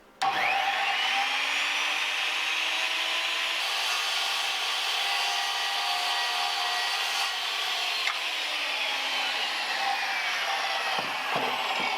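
Electric saw cutting a wooden shelf board slowly. The motor starts abruptly with a steady whine and noise of blade in wood, then its pitch falls over the last few seconds as the cut finishes.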